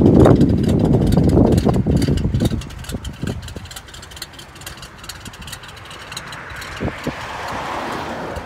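1960 Ford pickup's V6 engine running, with its exhaust loud for the first two and a half seconds, then much quieter as it settles to an idle.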